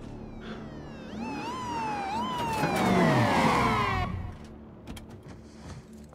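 Police car sirens sounding in overlapping sweeps, each jumping up and then sliding down, about once a second. They swell to a peak about three seconds in and die away about a second later.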